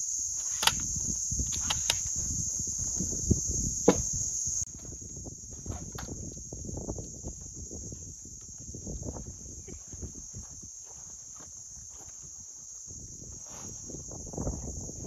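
A steady, high-pitched chorus of insects, which drops in level about four and a half seconds in. A few sharp clicks and knocks sound in the first four seconds, over soft rustling.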